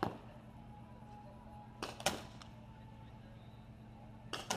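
Paintball pistol shots: sharp pops, one at the start, two about a quarter second apart near two seconds in, and two more close together near the end.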